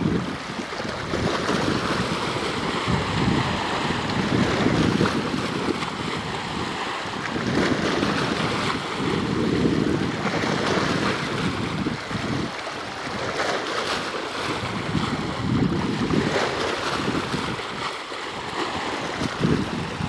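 Wind gusting across the microphone in uneven low rumbles, over a steady rush of wind and water.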